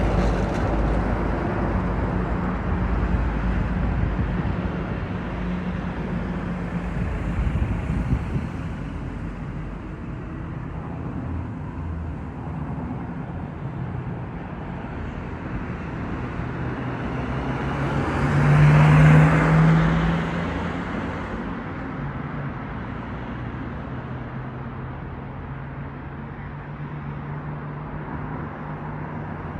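Motor vehicle engine running steadily, with another vehicle passing by that grows louder and fades about two-thirds of the way through.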